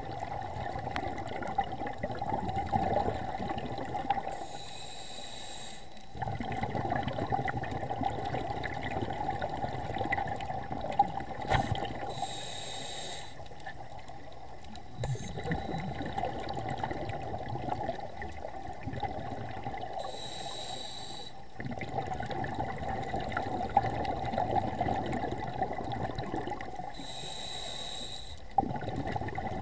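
Scuba diver breathing through a regulator underwater: a hiss on each of four inhalations, spaced about seven to eight seconds apart, with exhaled bubbles rumbling and bubbling in between.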